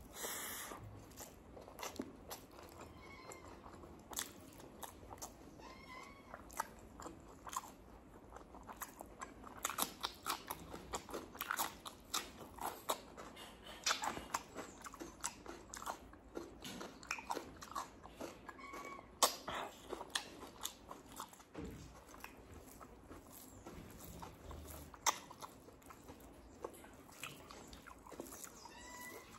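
Close-miked chewing of a mouthful of rice and colocasia-leaf curry eaten by hand: wet mouth clicks and lip smacks, irregular and many per second, with a few louder smacks.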